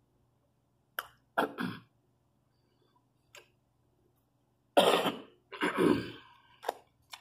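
A woman coughing while eating: a couple of short coughs about a second and a half in, then two loud coughs about five seconds in, with a few small clicks between.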